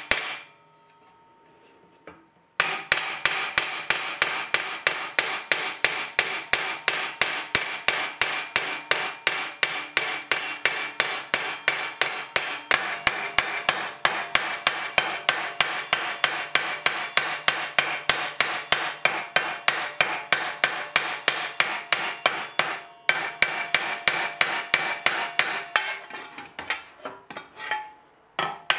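Hand hammer striking a 4130 spring-steel armour plate held over a steel stake: a fast, even run of ringing metal blows, about three to four a second, shaping the plate. The hammering starts a couple of seconds in and breaks off briefly a few times near the end.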